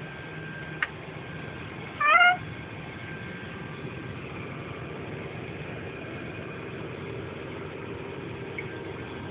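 A single short, loud squeal that rises in pitch, about two seconds in, over a steady low hiss, with a faint click shortly before it.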